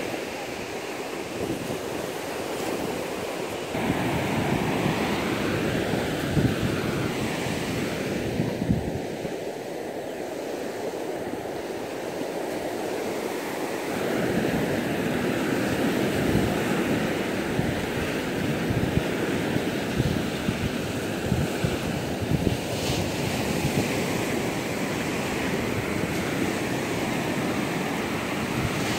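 Ocean surf breaking and foamy wash running up a sandy beach, a continuous rushing that grows louder about four seconds in and again about fourteen seconds in. Gusts of wind rumble on the phone's microphone.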